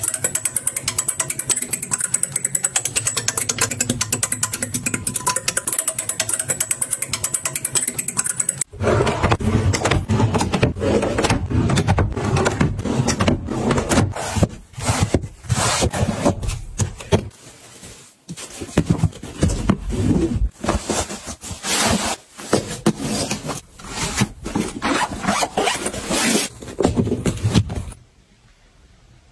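Household handling sounds: a fast, even run of clicking for about the first nine seconds, then irregular scraping, rubbing and knocks as hands work clothes hangers and a wooden dresser panel. It drops away to near silence at the very end.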